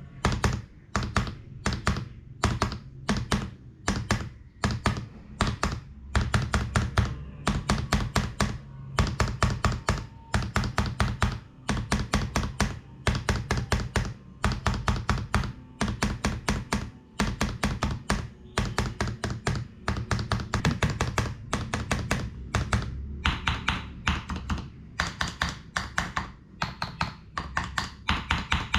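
Spacebar of a Filco Majestouch Ninja tenkeyless mechanical keyboard with a Cherry MX Red switch, pressed over and over in quick runs of clacks. Its Costar stabilizers are lubed with a mix of Super Lube and Pro II grease, and the spacebar is padded with DIY foam.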